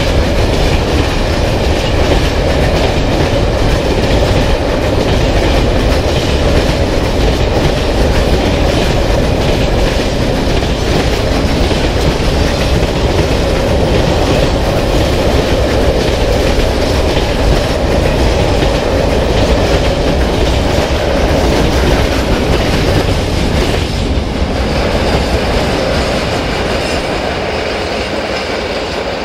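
Freight train of covered hopper wagons running past at close range, its wheels clattering on the track. The sound fades over the last few seconds as the train moves away.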